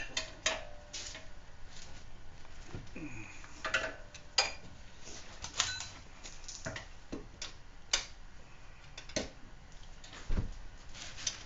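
Scattered metallic clicks and clinks of a hand wrench and socket working the rear hub bolts as they are tightened by hand. There is one dull thump about ten seconds in.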